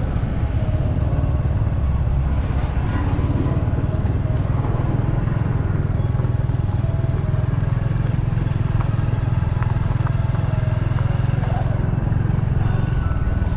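Steady low rumble of a moving motor vehicle: engine and road noise. Faint voices can be heard under it.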